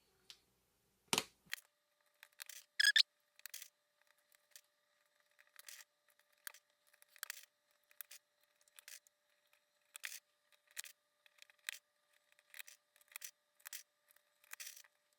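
Mechanical keyboard switches being pressed one by one into a hot-swappable keyboard's plate and sockets: short plastic clicks and snaps at irregular intervals, with a couple of louder snaps in the first few seconds.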